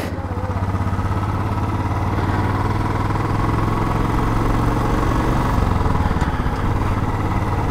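Motorcycle engine running steadily at low speed as the bike is ridden, heard from the saddle, with a fine even pulse.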